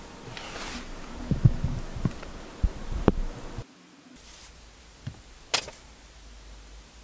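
Finger taps and knocks on a car head unit's touchscreen: a quick cluster of dull thumps in the first half, then two short sharp clicks near the end.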